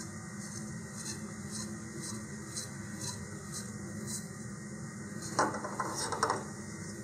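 Quiet handling noise: a cardboard rocket body tube and Kevlar shock cord being rubbed and tapped by hands, with a few louder rustles about five to six seconds in, over a steady low room hum.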